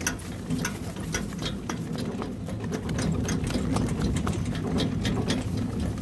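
Pony pulling a two-wheeled cart at a walk on a dirt track: irregular hoofbeats and rattling clicks from the cart and harness over a steady low rumble of the wheels on the ground.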